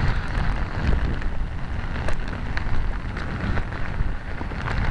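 Heavy rain falling on the street and puddles: a steady hiss with scattered sharp drop taps close by and a low rumble underneath.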